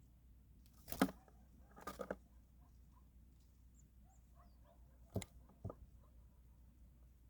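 Birds feeding: a few sharp taps and cracks of pecking at food, about a second in, around two seconds, and twice near five seconds, with faint short chirps between them.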